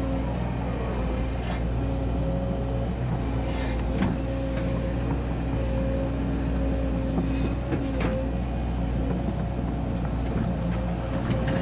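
Volvo 140 hydraulic excavator's diesel engine and hydraulics running steadily under load as the bucket digs into the soil, with a steady whine over the engine hum. There are two sharp knocks, about four seconds and eight seconds in.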